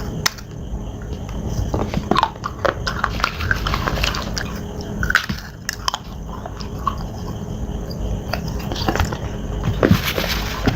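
Slate being bitten and chewed close to the microphone: irregular sharp crunches and cracks as the pieces break between the teeth.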